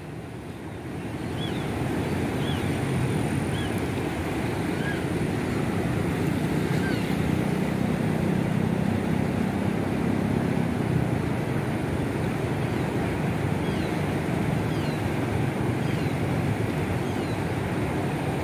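A swollen, fast-flowing river in flood after heavy rain, its muddy water rushing past the bank: a steady, low rushing noise that holds an even level throughout.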